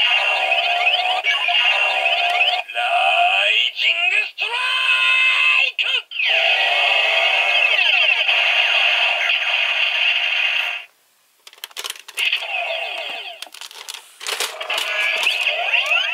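Electronic sound effects and a synthesized voice played from the built-in speaker of a Gokaiger pirate-ship toy gun, thin and tinny, in several phrases broken by short gaps.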